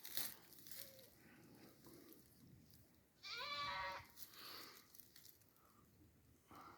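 A goat bleating once, a short wavering call about three seconds in, with a fainter sound just after; otherwise quiet.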